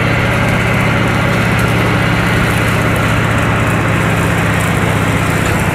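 Hinomoto E230 diesel tractor engine running steadily under load, driving a rear PTO shredder through grass: an even engine drone under the shredder's noise.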